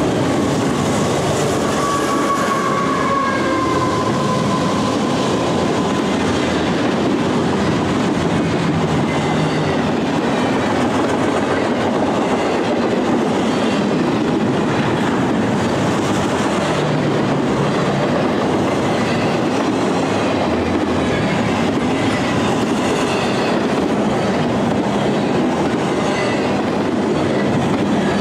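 CSX double-stack intermodal container train rolling steadily past at close range: a continuous rumble and rush of well-car wheels on the rails. A faint squealing tone falls slightly in pitch a few seconds in, and fainter short squeals come near the end.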